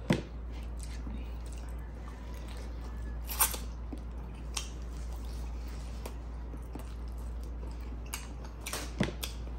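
A person chewing chicken and rice with the mouth closed, with a few scattered sharp smacks and clicks, most of them near the end, as fingers pick food off a wooden plate. A steady low hum runs underneath.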